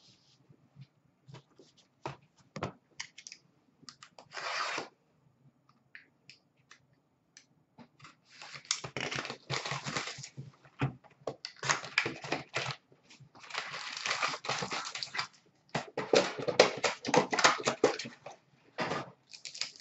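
Hockey card packs being torn open and their wrappers crinkled and rustled, with the cards handled: scattered small clicks and crackles at first, then longer runs of rustling from about eight seconds in.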